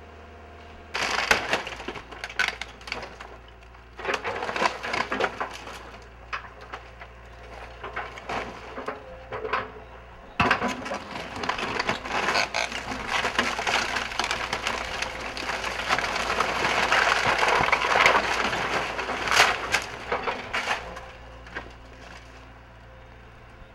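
Excavator tearing into a wooden building: timber cracking, splintering and crushing in bursts, with a sharp crash about ten seconds in and a long stretch of crunching after it. A steady low engine hum runs beneath.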